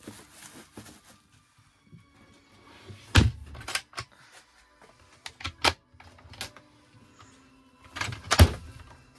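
Campervan overhead cupboard doors being pushed shut, giving a series of sharp knocks and latch clicks, the loudest about eight seconds in. Bubble wrap crinkles briefly at the start.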